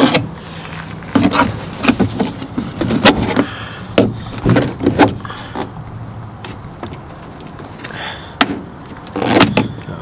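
Plastic pry tool working at a Ford Transit's plastic pillar trim, giving irregular clicks, knocks and scrapes as it levers at the panel's clips, with one sharp click about eight seconds in.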